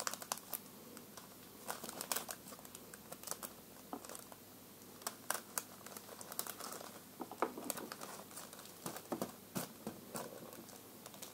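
Hands handling monofilament fishing line and small tackle on a table: faint, irregular crinkling and light clicks.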